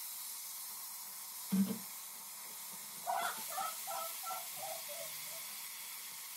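Blended tomato being poured through a mesh strainer into a pot of pasta frying in oil, with a steady sizzling hiss. A short thud comes about a second and a half in, and a few faint brief pitched sounds sit in the background near the middle.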